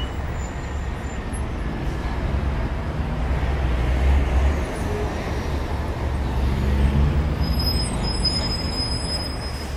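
Street traffic noise: a steady low vehicle rumble that swells about four and seven seconds in.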